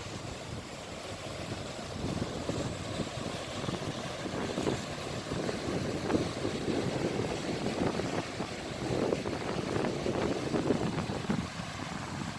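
Ocean surf washing onto the shore, a continuous rushing that swells and eases several times and drops back near the end.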